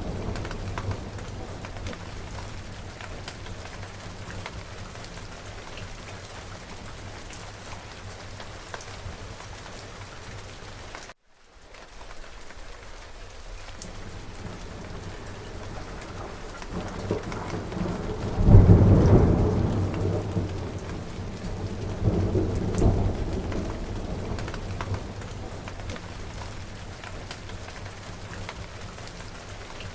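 Steady rain falling with thunder rolling in a thunderstorm. A loud low rumble of thunder swells a little past the middle, then a smaller rumble follows a few seconds later. The sound drops out for a split second about a third of the way in.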